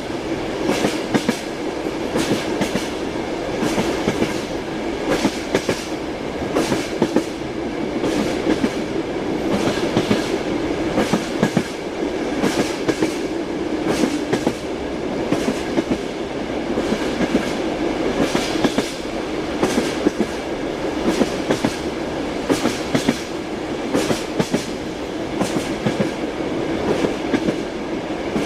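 Train wheels clacking over rail joints, heard from inside a moving railway carriage: sharp knocks in repeated groups over a steady rolling rumble.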